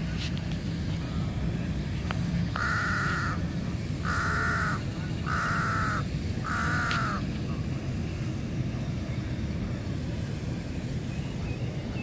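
A crow cawing four times in quick succession, each caw under a second long, over a steady low rumble.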